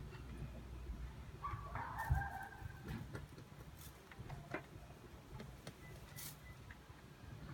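Light knocks and taps, the loudest a thump about two seconds in, with a short squeaky call at the same time.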